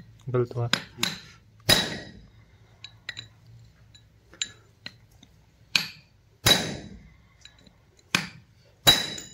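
Hammer striking a steel chisel held against the end of a combine cutter motor's splined gear shaft: about ten irregular metallic blows, each with a short ring.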